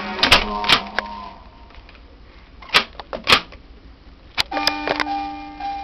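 Several sharp clicks and knocks, two near the start, two about three seconds in and two more about four and a half seconds in. Then a simple tune of long held notes begins near the end.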